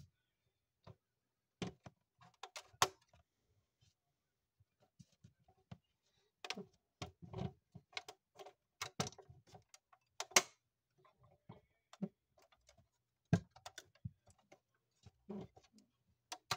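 Irregular light clicks and taps from a hand handling a 1:18 diecast Range Rover Vogue model, with its bonnet being shut and its opening parts worked.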